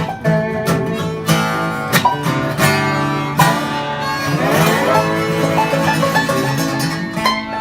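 Acoustic string band playing an instrumental passage in a country or bluegrass style, with guitar to the fore. About halfway through, a note slides upward.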